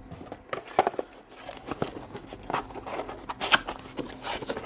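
Hands handling drill motor parts on a workbench: irregular rustling with scattered small clicks and light knocks.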